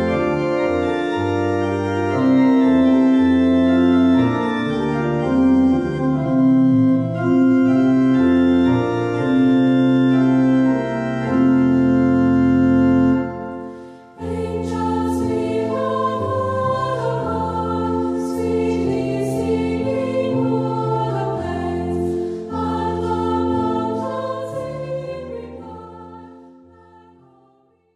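Background music of slow, held chords with a melody moving in long notes. About fourteen seconds in it briefly drops away, then resumes as a busier passage that fades out near the end.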